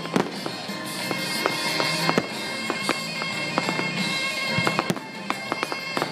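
Aerial fireworks bursting, with an irregular string of sharp bangs and crackles over music with held notes.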